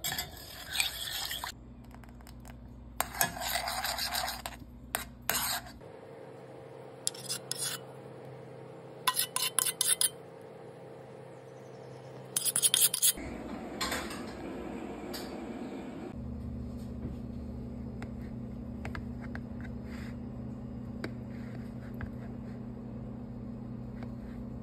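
Metal spoon scraping and stirring against a steel pan of milk being cooked down, in short bursts a second or so long, over a steady low hum. The scraping stops for the last several seconds.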